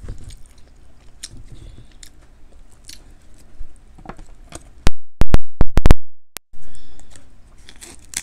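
King crab legs being handled and cracked close to the microphone: light shell crackles and crunching, then a cluster of about six very loud, sharp snaps about five seconds in that overload the recording. Near the end, scissors start snipping into the crab shell.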